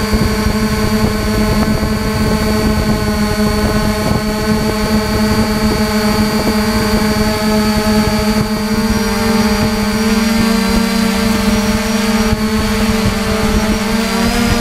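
3DR IRIS+ quadcopter's four electric motors and propellers humming steadily in flight, heard through the camera mounted on the drone, with a rough rumble of wind buffeting underneath.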